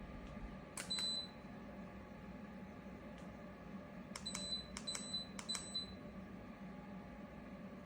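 Buttons on a Holiwil ceramic fan heater pressed, each click answered by a short high beep: once about a second in, then three times in quick succession a few seconds later, over the steady hum of the running unit.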